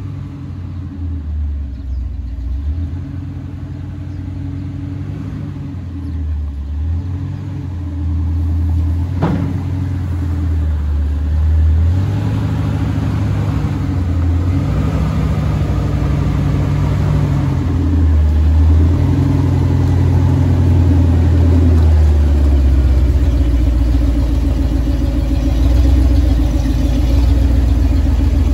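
Classic Ford F-series pickup's engine running at low speed as the truck is driven in and pulled up close, its pitch rising and falling and the sound growing louder as it nears. A single sharp click about nine seconds in.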